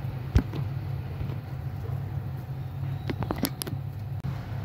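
A steady low hum, with one sharp knock about half a second in and a few light ringing metal clinks a little after three seconds, as a stainless-steel pot lid is handled.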